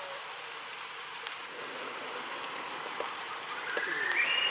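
Steady outdoor forest ambience: an even hiss with a faint high, steady drone running through it. A short high-pitched call comes about four seconds in.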